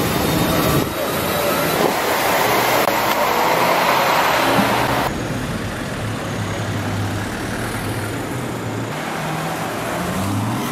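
Busy city-street traffic noise. A loud, even roar for about the first five seconds drops off suddenly. After that a low steady engine hum is heard, and near the end a car engine rises in pitch as the car accelerates past.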